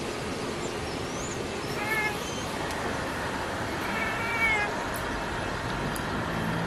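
Black and white domestic cat chirping at a distant pigeon: a short chirp about two seconds in and a longer, wavering one about four seconds in. A steady background hiss runs under both, and a low engine hum comes in near the end.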